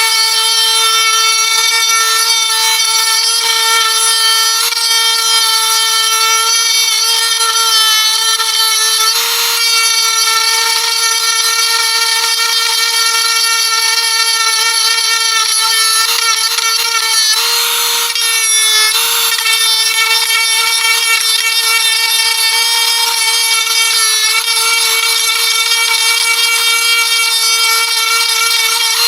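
DEPSTECH DC08 8V cordless rotary tool running at its top speed with a carving bit, giving a steady high whine, with short rasping spells as the bit hogs into oak, around nine seconds in and twice near eighteen seconds.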